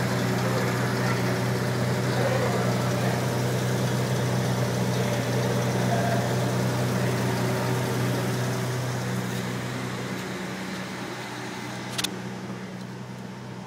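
1990 Dodge Dakota's V6 engine idling steadily, heard from inside the cab, easing off slightly in level after about ten seconds. A single sharp click comes near the end.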